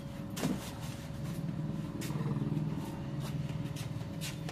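A vehicle engine running with a steady low hum that grows a little louder around the middle. A light knock about half a second in.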